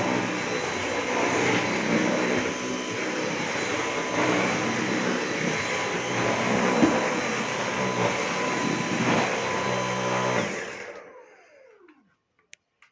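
Dyson V8 Animal Extra cordless stick vacuum running steadily on a hard floor with a high whine. About ten and a half seconds in it is switched off, and the motor winds down in a falling whine.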